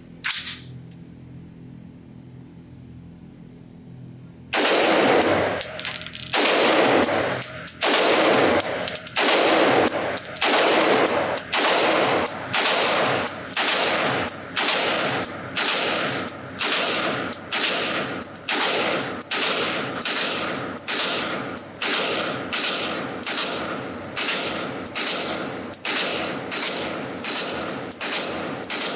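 Springfield Armory Saint AR-15 rifle in 5.56 NATO firing aimed semi-automatic shots at a steady pace, about one every three-quarters of a second, starting some four seconds in. Each shot echoes off the walls of an indoor range.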